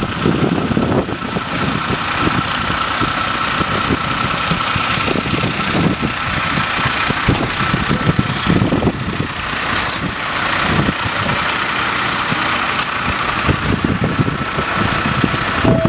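Fire engine's engine running steadily with a thin steady whine over it.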